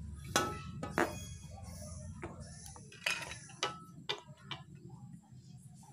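Irregular light clicks and knocks of hard plastic horn-speaker parts being handled and fitted together as the driver unit goes back into its housing.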